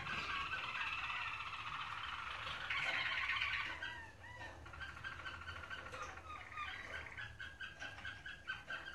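Roller canaries singing: fast rolling trills and chirps, loudest about three seconds in, then breaking into shorter repeated phrases.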